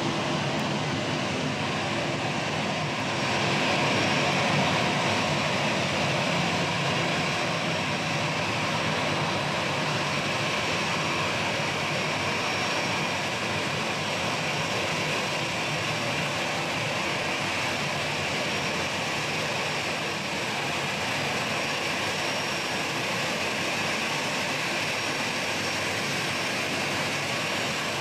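Airbus A320-214's CFM56-5B jet engines running at low taxi power as the airliner rolls past: a steady jet hiss with a whine that strengthens about three seconds in and then holds.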